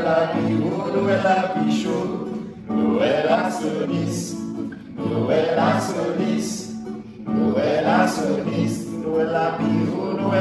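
A man singing in phrases while strumming an acoustic guitar with a steady beat.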